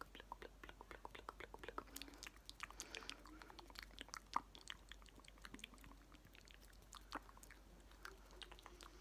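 Close-miked ASMR mouth sounds: a dense run of wet lip and tongue clicks and smacks, with a few faint low vocal murmurs now and then.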